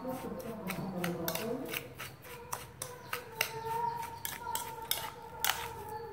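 Metal spoon scraping and clinking against a ceramic bowl while stirring a coarse salt, chili and dried-shrimp mixture: a quick, uneven run of scrapes and clicks.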